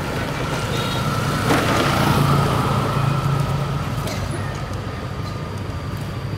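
A motor vehicle's engine running steadily, with a brief louder swell of noise about two seconds in.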